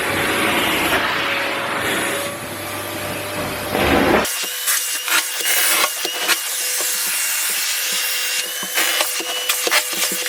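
Kärcher VC 2 vacuum cleaner running with a steady hum and whine, which cuts off sharply about four seconds in. After that comes a rapid, irregular run of clicks and scraping with a faint wavering whistle.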